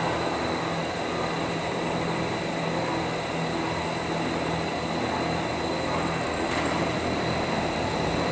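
Five motor-driven car wash brushes spinning: a steady whirring rush of nylon bristles through the air over a low electric motor hum, with a thin high-pitched whine.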